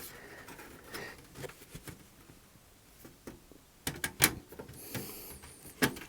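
Scattered clicks and knocks of the plastic casing and front-panel circuit board of a Sky+HD box being worked loose by hand, with a few sharper knocks about four seconds in and one near the end.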